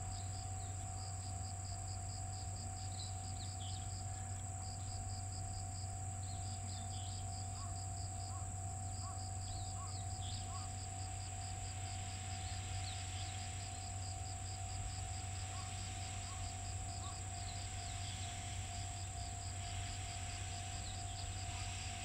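Hiss of steam from the cylinder drain cocks of the steam locomotive C58 363, starting about ten seconds in and swelling and easing several times, over a steady low hum. Insects chirp throughout in a fast, even pulsing rhythm.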